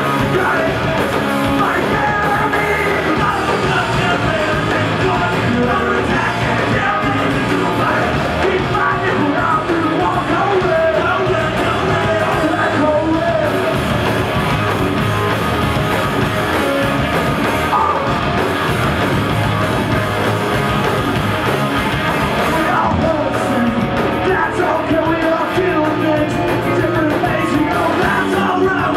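Punk rock band playing live, loud and steady, with shouted singing over the music.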